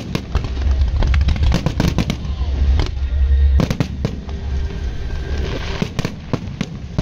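Fireworks bursting at close range, a rapid run of sharp bangs and crackles with a deep rumble under them through the first half.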